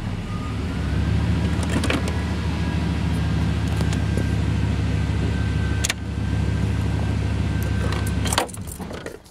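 GM pickup engine idling, heard from inside the cab, with a thin steady whine above it and a few sharp clicks. The engine sound cuts off abruptly near the end.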